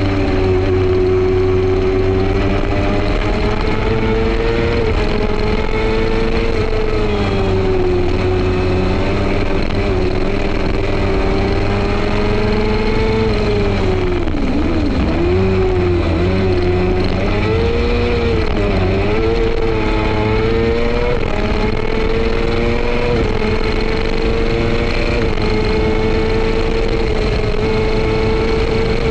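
F2 racing sidecar's engine running hard, heard from on board the outfit. The note holds fairly steady, then about halfway through it drops and climbs several times in quick succession before settling back to a steady high pitch.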